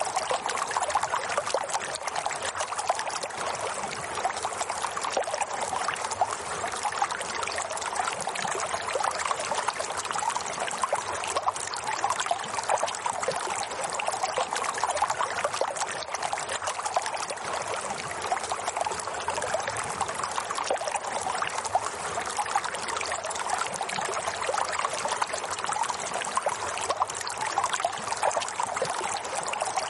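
Running water flowing steadily, a continuous trickling and splashing with no pauses.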